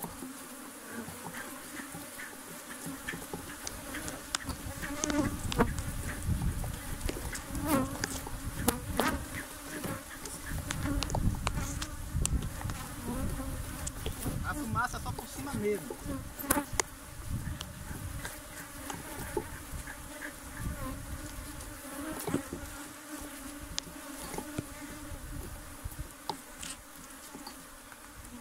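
A honeybee colony buzzing steadily around an opened hive, with scattered clicks and knocks from the frames being handled.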